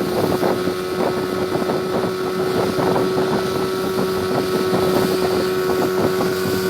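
Boat motor running steadily at a constant pitch, with wind noise on the microphone.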